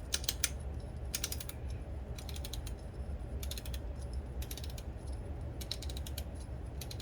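Aluminium pepper grinder's grind-adjustment dial being turned toward the fine setting, giving about seven short bursts of rapid ratchet-like clicks.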